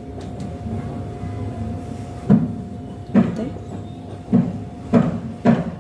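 Five dull knocks and bumps in the second half, unevenly spaced, over a steady faint tone.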